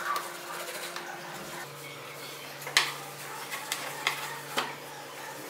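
A cloth wiping and rubbing over a carved wooden spoon, with four or five short, light knocks of wood on the board, the first about halfway through.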